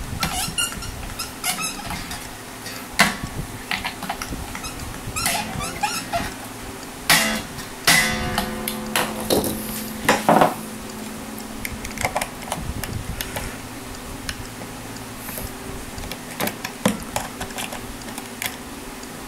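Metal clicks and clinks of an Ibanez S520's steel strings and Floyd Rose bridge hardware being handled during re-stringing. About eight seconds in, an unplugged string rings out for about two seconds.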